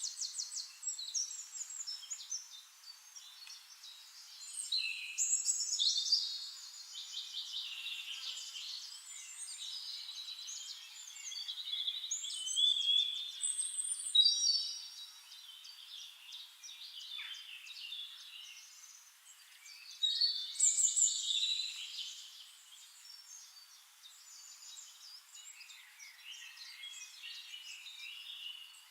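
Several small songbirds singing together: overlapping rapid trills and short chirping phrases, swelling louder in a few spells.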